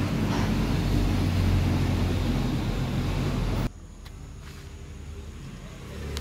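Steady low mechanical rumble. It drops abruptly to a much quieter low hum about three and a half seconds in.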